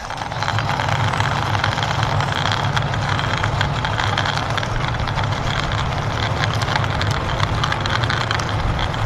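Toy military vehicle pushed along the ground by hand, its wheels rolling with a steady rumble and many small clicks.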